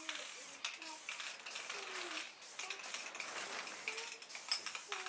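Aerosol spray-paint can hissing against a brick wall in short bursts, with several brief breaks, mixed with light metallic clicks.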